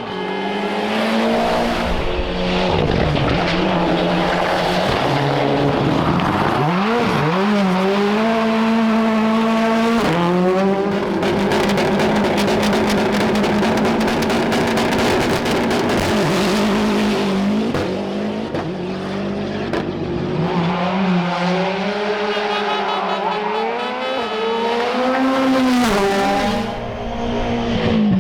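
Rally car engine revving hard through a special stage, its pitch climbing and dropping over and over with throttle and gear changes, and held high for several seconds in the middle.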